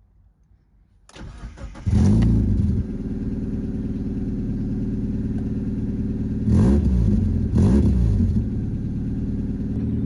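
Mazda MX-5 Mk2 four-cylinder engine cranked by the starter about a second in, catching almost at once on a newly fitted battery with a short flare of revs, then settling to idle. The revs rise briefly twice in the middle.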